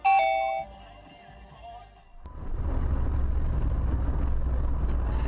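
A short, loud tone of two close pitches at the start, then about two seconds in the steady low rumble of a car's engine and road noise.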